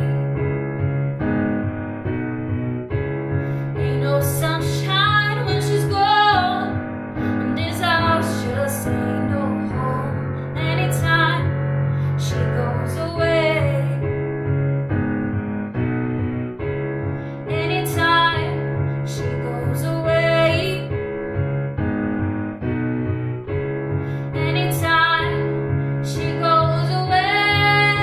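A woman singing a slow song while accompanying herself on a digital piano. Held chords change every second or two under the voice, and the singing comes in separate phrases with short gaps between them.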